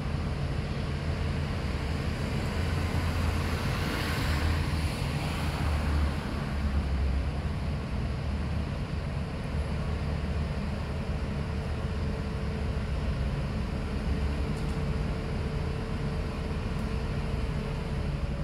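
Steady low rumble of outdoor street background noise, with a faint steady hum under it; a hiss swells briefly about four seconds in.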